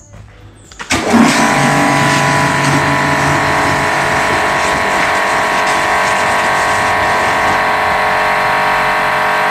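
Pressure washer starting about a second in and running steadily, its jet spraying into a bucket of car shampoo to foam it up: a steady whine of several tones over a loud hiss of spray.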